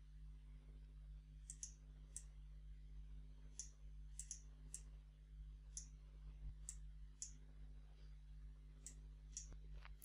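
Faint computer mouse clicks, about a dozen at irregular intervals, some in quick pairs, over a steady low electrical hum.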